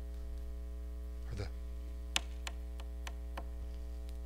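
Steady electrical mains hum from the recording or sound system, with several short, soft clicks in the middle, the sharpest a little past two seconds in.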